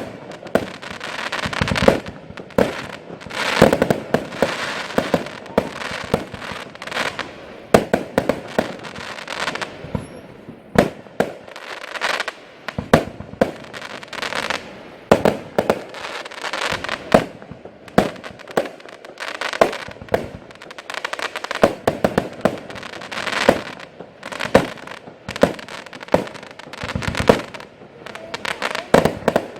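Category F2 consumer fireworks firing: a continuous run of sharp bangs, many close together, with crackling and hiss between the shots.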